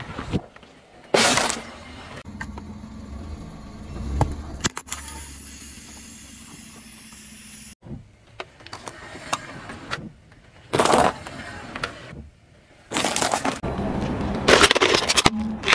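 A car tyre rolling over and crushing small objects on asphalt, in several short cut-together clips: a handful of separate sharp crunches, each under a second long, with low car engine and tyre noise between them.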